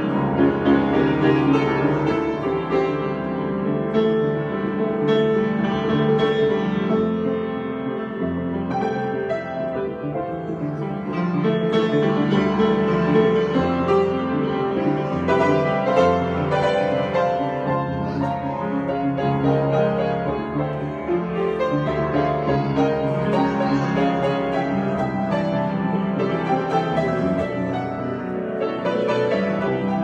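Solo grand piano being played in a continuous improvisation, with dense, sustained notes and chords throughout.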